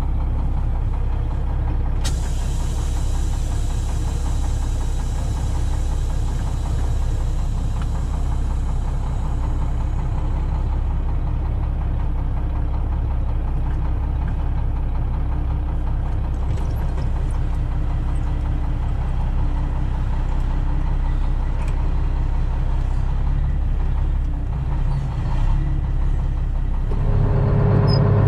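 Dump truck engine idling, heard from inside the cab while it warms up, with a steady hiss that comes in about two seconds in and fades out by about ten seconds. Near the end it changes to a louder, steadier hum of the John Deere 4555 tractor's diesel engine idling, heard from inside the tractor cab.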